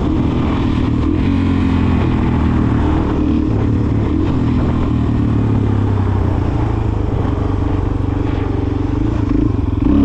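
Dual-sport motorcycle's engine running steadily while riding on the road, with wind and road rush over it.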